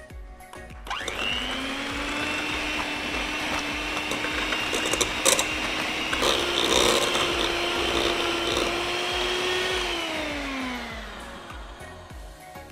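Sharp electric hand mixer whipping softened butter in a stainless steel bowl with its wire beaters. It starts up about a second in, runs with a steady motor whine, gives a few clicks midway, and winds down with a falling pitch near the end.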